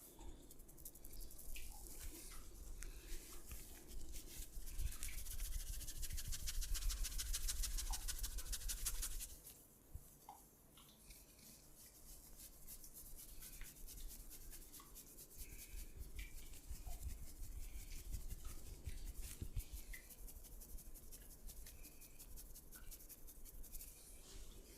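Hands rubbing briskly over skin and hair in a massage, fast and dense for about the first nine seconds. It then drops to softer rubbing with scattered small clicks.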